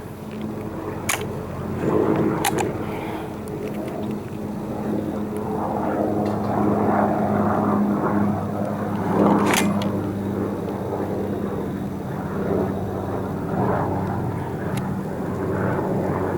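Hatsan 135 .30 calibre gas-piston break-barrel air rifle being handled and fired once without dieseling: a few sharp clicks and one loud report, over a steady low hum.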